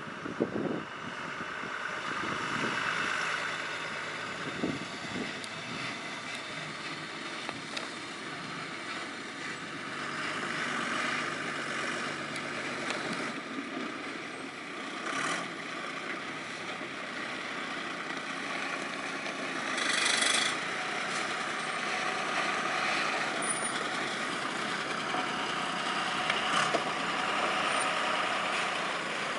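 Heavily loaded multi-axle diesel goods truck running under load on a rough road. About two-thirds of the way through there is a brief loud hiss.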